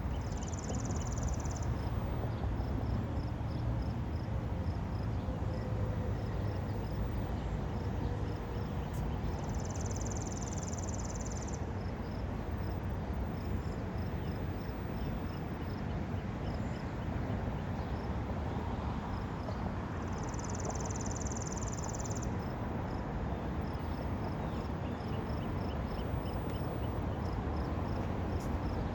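Outdoor ambience: a steady low rumble under a faint, rapid high ticking, with a high buzzing trill that comes back about every ten seconds, the first near the start, then about ten and twenty seconds in.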